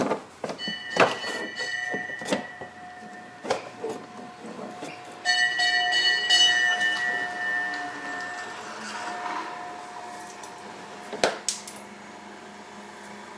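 Metal hand tools and fasteners clinking and knocking while an underbody splash guard is refitted, with twice a struck metal piece ringing like a bell for a second or more before fading.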